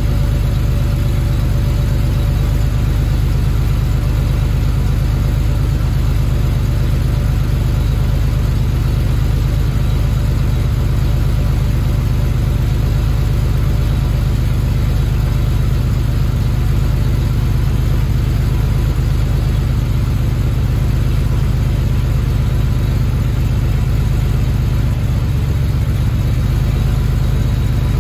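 1977 Porsche 930 Turbo's air-cooled, turbocharged 3.0-litre flat-six idling steadily as it warms up after a cold start, heard at the exhaust.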